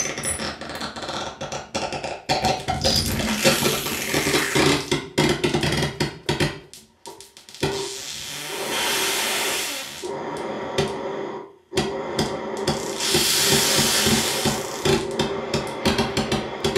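Free-improvised noise music from saxophone, turntable and synthesizer: dense clicks, crackle and hiss over sustained low tones. The sound drops out briefly twice, about seven and eleven seconds in.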